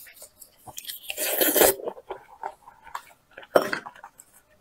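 Gloved hands tearing cooked meat and bone apart from a braised animal head, wet crunching and cracking, with chewing between. A long, loud tearing crunch about a second in and another sharp one a little after three and a half seconds.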